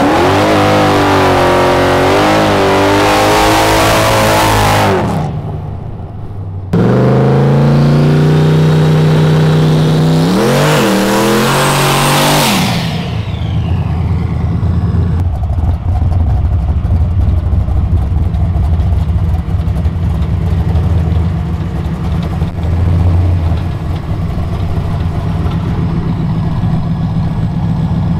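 Drag race car engines at full throttle: two hard runs, each a loud engine note wavering and climbing through gear changes, the second rising and then dropping off about 12 seconds in. After that a lower, steady engine rumble with scattered clicks.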